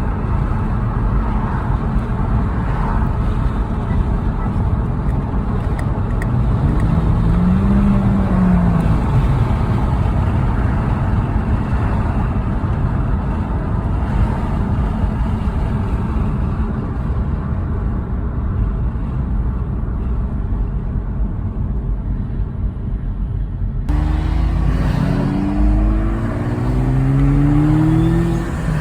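A 1993 Mazda FD RX-7's twin-turbo 13B rotary engine running on the road under throttle, with a steady low rumble. It has loud turbo flutter, the chattering compressor surge when the throttle is lifted. Near the end the revs rise in several quick pulls.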